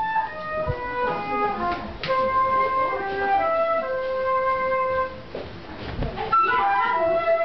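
A flute-like wind instrument playing a slow melody of held notes, some of them slid into. There are a few soft thumps underneath, the clearest about six seconds in.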